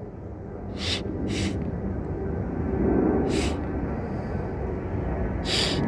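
Four short breathy blows across an acorn cap held between the thumbs, puffs of air that do not yet make it whistle. A steady low rumble of a passing airplane runs underneath.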